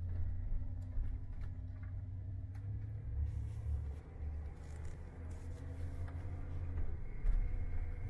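Van engine and road noise heard from inside the cab: a steady low rumble with a faint hum and a few scattered light clicks and rattles.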